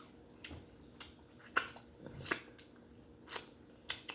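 Close-up chewing of steamed conch: a handful of short wet mouth clicks and smacks, spaced irregularly.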